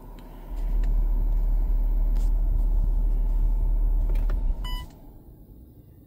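Low rumble of a running Ford Explorer ST heard from inside the cabin. It stops abruptly about five seconds in, just after a short beep.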